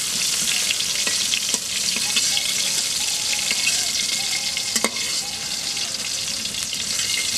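Brinjal (eggplant) pieces sizzling in hot oil in a metal kadai, a steady hiss, with a few sharp clicks of the metal spatula against the pan as the fried pieces are lifted out.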